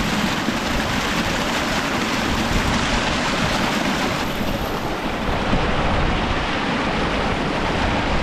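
Fast mountain stream rushing and splashing over rocks close to the microphone, with a plastic water bottle held in the flow to fill it.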